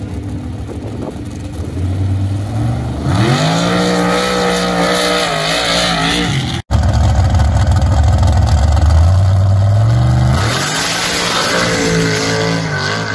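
Sand drag vehicles on paddle tires launching at full throttle: a low engine note climbs steeply about three seconds in and holds high. After a sudden cut, a heavy low rumble builds into a second steep climb in revs near the end.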